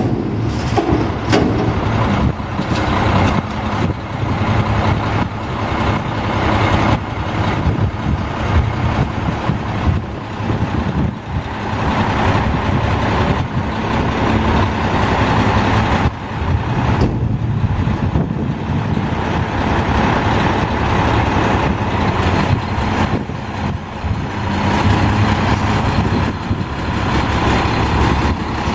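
2000 Volvo front-loader garbage truck's diesel engine running as the hydraulic front forks lower the container from over the cab and the truck moves off. Scattered clanks and knocks come from the arms and container.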